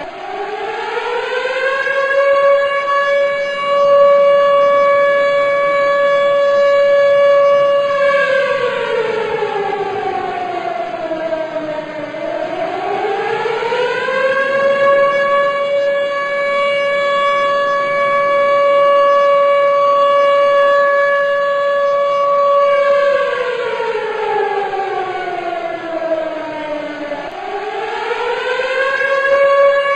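Civil defence siren wailing in slow cycles: the pitch rises to a held tone, stays level for several seconds, then slides down and climbs again. It is the remembrance siren sounded for the one-minute silence on 10 November.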